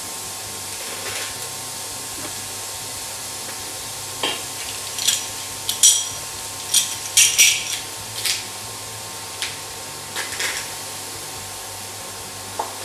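Scattered sharp metallic clicks and clinks of a Zyliss garlic crusher being loaded with unpeeled cloves, squeezed and scraped with a wooden spoon against a steel pot, over a faint steady sizzle of onions frying in the pot.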